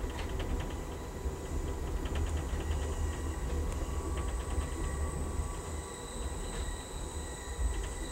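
Amtrak passenger train rolling downgrade, heard from on board: a steady low rumble with clusters of faint rapid clicking and a thin steady high whine that strengthens about halfway through.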